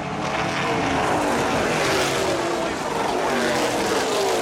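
Pack of late model stock cars racing around the track, several engines sounding at once, their pitch sliding up and down as the cars pass.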